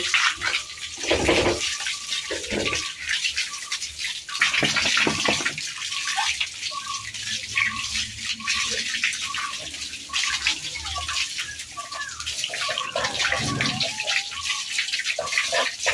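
Water gushing from a garden hose, splashing over a wet Labrador's coat and spattering onto the floor in a steady hiss.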